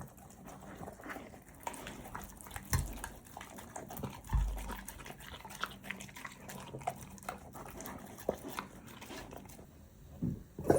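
Labrador puppy eating: a steady run of wet chewing, licking and lip-smacking clicks, with a couple of dull low thumps. Near the end a short louder low sound comes, followed by a sharp peak.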